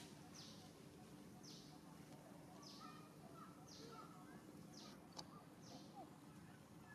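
Faint forest ambience: a high, falling call repeats about once a second, with faint scattered chirps beneath it.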